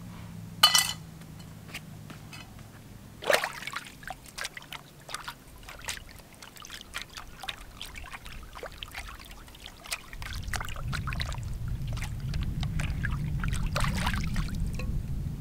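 Camp dishes rinsed in shallow lake water: splashing, and water pouring off a metal plate. A sharp clink of dishes comes about a second in and another about three seconds in, and from about ten seconds a louder low rumble joins the splashing.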